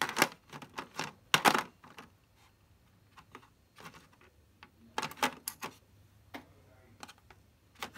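Steel sockets and tools of a King Tony 24-piece socket set clicking and clinking as they are handled and set into their case, in irregular sharp taps that are loudest in the first two seconds.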